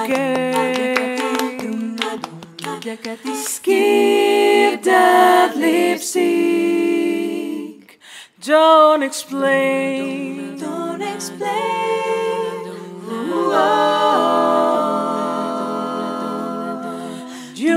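Six women singing a cappella, several voices holding close-harmony chords in a slow jazz ballad; the singing breaks off briefly about eight seconds in.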